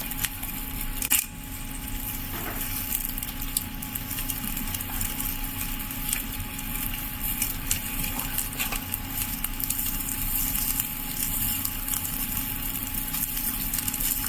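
Chicken thighs sizzling over hot charcoal in a Weber kettle grill: a steady sizzle with scattered crackles as the fat spits. There is a single sharp click about a second in.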